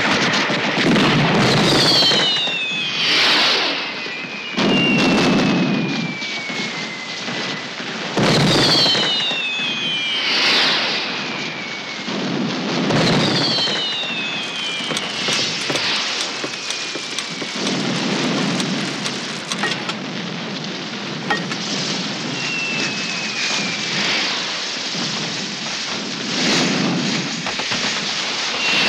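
Fireworks going off: steady crackling and fizzing, with low booms every few seconds and several whistles that fall in pitch.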